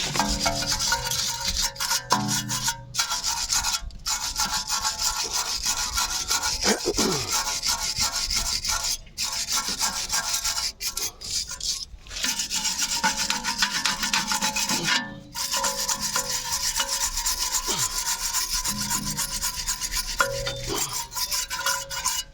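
Rapid back-and-forth scrubbing of a metal brake part by hand, cleaning off dirt and rust, with a few short pauses.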